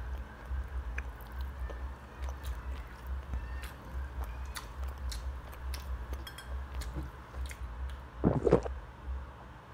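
Close-miked chewing of a mouthful of jajangmyeon noodles, with many small wet mouth clicks. About eight seconds in come a couple of louder swallows as water is drunk.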